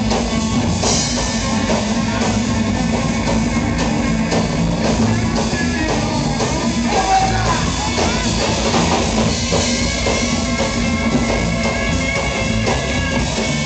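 Live rock band playing loud and steadily: electric guitar over a driving drum kit.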